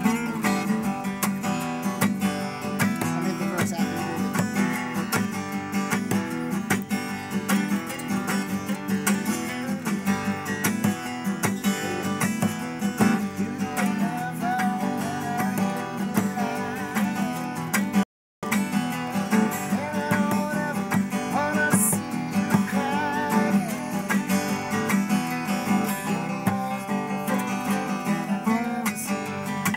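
Two acoustic steel-string guitars played together in an informal jam, strummed and picked chords with single-note lines over them. The sound drops out for a split second a little past halfway.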